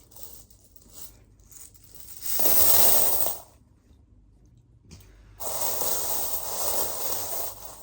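A heap of collected cash being handled: two noisy stretches of rustling and shuffling, a short one and then a longer one near the end.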